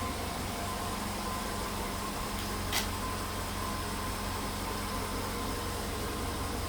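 Volkswagen Polo Sedan engine idling steadily after a cold start, heard from outside the car: a steady hum with a thin whine, and a single sharp click about three seconds in. The owner hears an odd noise, as if something is rattling loose, along with the engine knock he is documenting.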